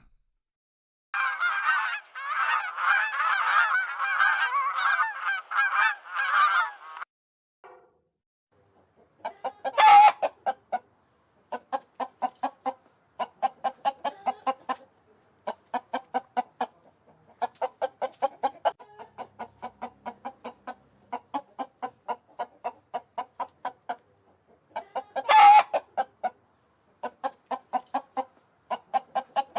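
Domestic fowl calling: a dense stretch of overlapping calls for about six seconds, then after a short pause a long run of short, evenly spaced calls, several a second, broken by two louder cries, one about ten seconds in and one about twenty-five seconds in.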